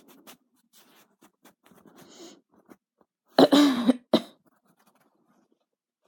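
A cough brought on by the heat: one loud, harsh cough about three and a half seconds in, followed straight away by a short second cough.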